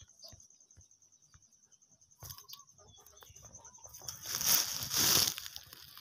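A high-pitched insect trilling in fast, even pulses for about four seconds, then two loud bursts of crunching and rustling on dry leaves and dirt.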